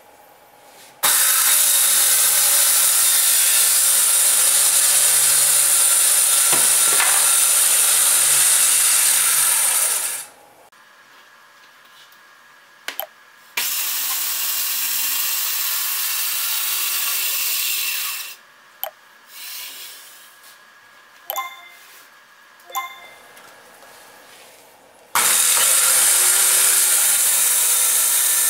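Makita circular saw running on an aluminium guide track and cutting a wooden board: it runs three times, a long run of about nine seconds, a shorter quieter run, and a third starting near the end. Each time it is switched off the blade winds down with a falling whine, and a few clicks come in the pauses.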